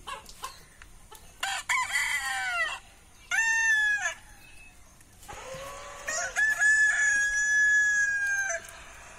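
Rooster crowing: a call about a second and a half in, a short one around three and a half seconds, then a long crow that holds a steady note for about two seconds and stops near the end. It is a pet rooster answering a crow recording played on a mobile phone.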